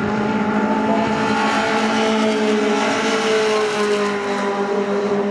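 Engines of several racing pickup trucks running at high revs on track, their pitches slowly falling as they go past.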